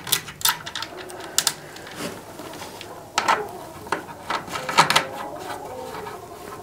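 Irregular clicks and scrapes of a screwdriver and fingers working the terminal screw on a Gallagher M60 electric fence energizer's plastic case, loosening it to take a wire. The louder clusters of clicks come about three and five seconds in.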